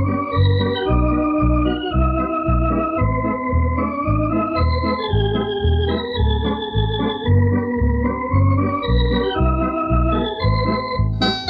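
Thomas electronic home organ playing a sustained melody over a steady bass beat of about two notes a second. A brighter, more piano-like voice comes in near the end. The recording is from an old cassette tape with some wow and flutter.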